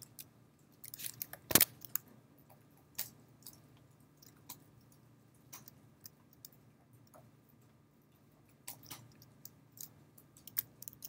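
Sparse keystrokes on a computer keyboard: a few quiet key clicks at a time with pauses between, the loudest tap about one and a half seconds in.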